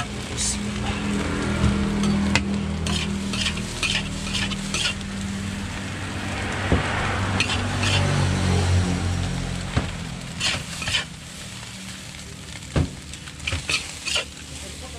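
Nasi goreng sizzling in a large wok while a metal spatula stirs and tosses it, with repeated sharp scrapes and clanks of the spatula on the wok that come more thickly in the second half. A low steady hum runs under the first half and fades out.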